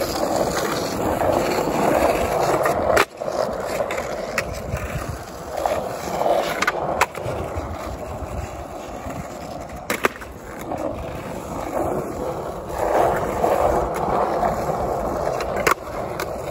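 Skateboard wheels rolling on an asphalt street, a steady rumbling roll. A handful of sharp clacks of the board cut through it at scattered moments.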